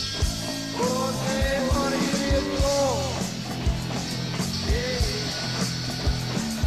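Live punk-rock band playing: electric guitars, fretless bass and drums, with a melody line bending up and down in pitch over a steady drum beat.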